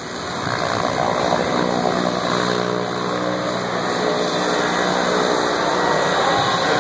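A Cessna Caravan's single turboprop engine and propeller running as the plane taxis past. The sound grows louder over the first second or so, then holds as a steady hum over propeller noise.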